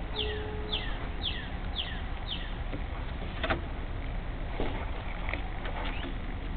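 Steady low rumble of wind on the microphone. Over it, a bird calls a series of short, falling chirps about twice a second for the first couple of seconds and again near the end. A single sharp knock comes about halfway.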